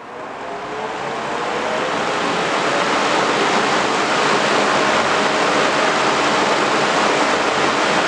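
Drum fan starting up: its blades spin up from a standstill, the rush of air growing louder over the first two or three seconds and then settling into a steady loud blowing, with a faint thin motor whine joining about halfway through.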